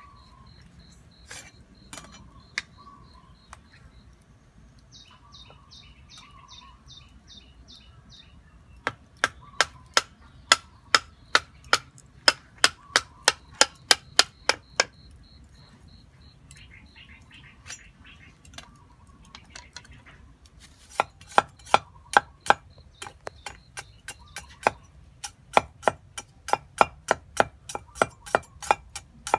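Knife chopping on a thick wooden chopping block: runs of quick, even strokes, about two to three a second, with a few single knocks before the first run.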